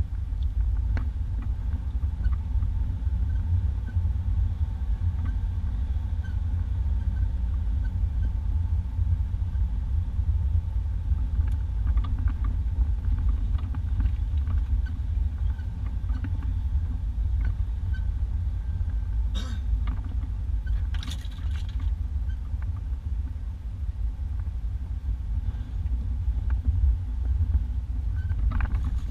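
Steady low rumble inside the cab of a 1991 Isuzu Trooper driving slowly along a dirt two-track, the sound of its engine and tyres. A few sharp knocks and rattles come about two-thirds of the way through.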